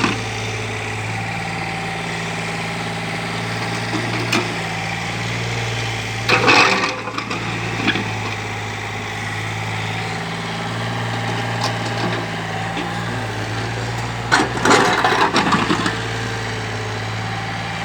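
Kobelco SK013 mini excavator's diesel engine running steadily, with two louder rattling, scraping bursts about six seconds in and again near the end as the machine works the material.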